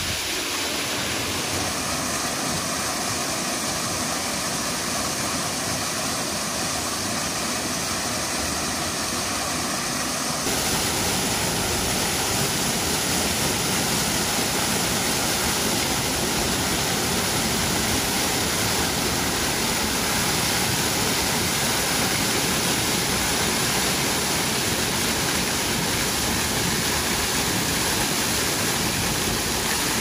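Narrow waterfall pouring over a rock ledge into a pool, a steady rush of falling and splashing water. About ten seconds in it cuts to a slightly louder, fuller rush with more low rumble.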